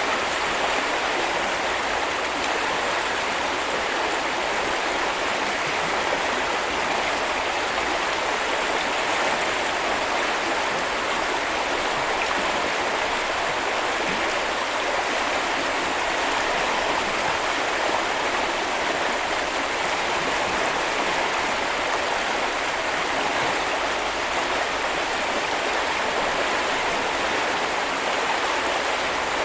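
A stream flowing steadily: an even, unbroken rush of water with a hissy, bright tone.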